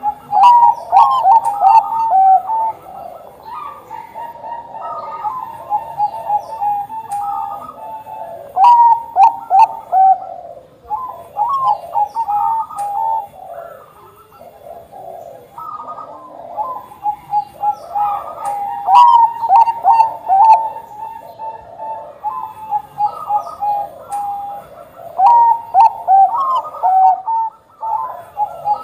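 Bangkok-bred zebra doves (perkutut bangkok) cooing, with phrase after phrase of short, clear notes. The phrases overlap and are dotted with brief high chirps.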